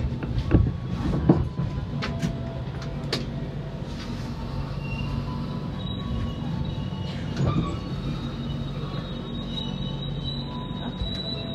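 Passenger train braking into a station, heard from inside the carriage: a steady low running rumble with a few sharp knocks in the first three seconds, then thin, high brake and wheel squeal tones that grow steadier towards the end as the train slows.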